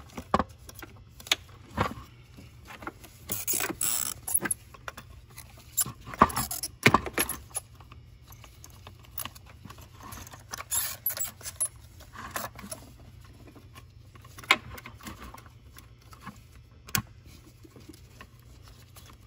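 Plastic vacuum-line connectors and clips being handled and pushed on by hand: irregular clicks, taps and light clatter. A click here marks a connector snapping fully into place.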